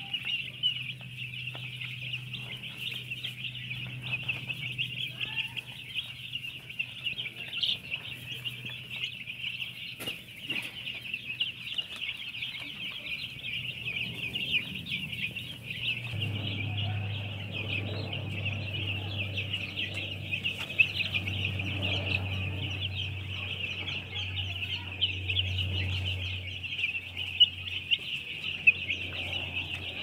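A flock of three-day-old broiler chicks peeping continuously, a dense chorus of many short high cheeps overlapping, over a low steady hum.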